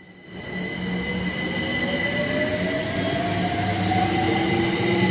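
London Overground electric train accelerating, its traction motors whining and rising steadily in pitch over a steady high-pitched tone and a rumble of wheels on rail.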